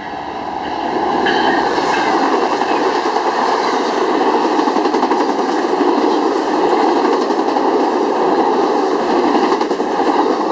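Amtrak passenger train passing close at speed. The sound swells over the first second as the diesel locomotive goes by, then holds steady as the double-deck Superliner cars roll past on their wheels.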